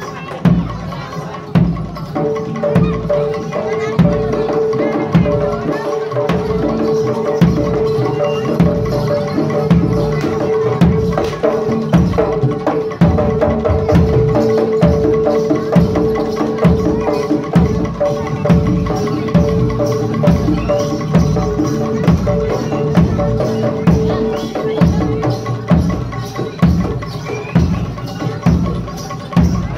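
Jaranan music from a traditional East Javanese ensemble: drums beating a steady rhythm of about two strokes a second, with a long held note over most of it that stops near the end.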